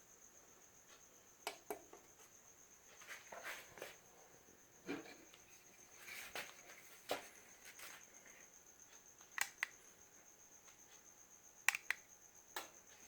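Sharp small clicks, several in quick pairs like a button pressed and released, from handling and pressing the buttons of a handheld garage door remote. Under them runs a faint, steady, high-pitched pulsing chirp.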